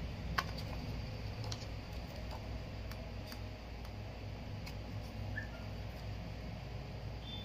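Scattered light clicks and ticks of a thin clear plastic protector sheet being flexed and handled, the sharpest about half a second in, over a steady low hum.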